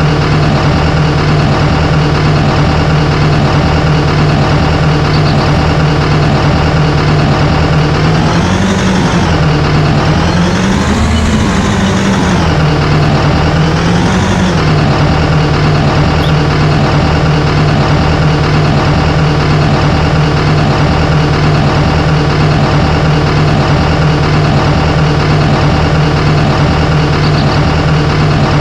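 Heavy diesel engine running steadily, its pitch rising and falling briefly three times around the middle.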